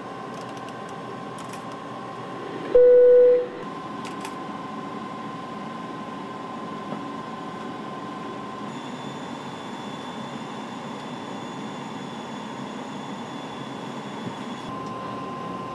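Steady aircraft flight-deck noise, an even rumble with a faint thin whine. About three seconds in, a single loud beep sounds for under a second. A fainter high whine joins from about nine seconds in and stops shortly before the end.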